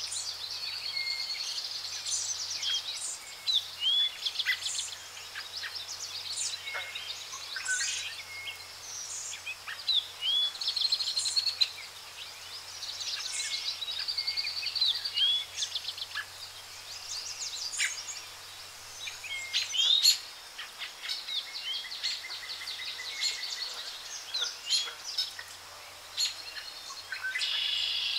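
Birds chirping and calling throughout: many short upswept chirps, quick trills and an occasional held whistle, over a faint steady hiss.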